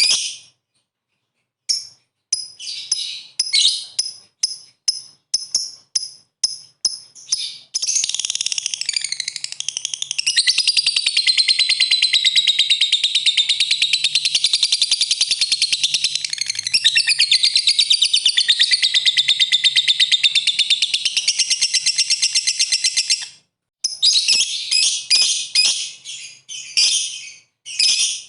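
Lovebird calling: a run of short, high chirps, then from about eight seconds in one long unbroken rapid chatter, the 'ngekek' song, lasting some fifteen seconds before it breaks back into separate chirps.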